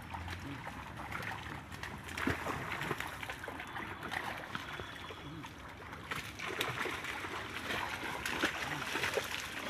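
Water splashing and sloshing as people wade through a shallow pond, dragging a fishing net through the water, with faint voices.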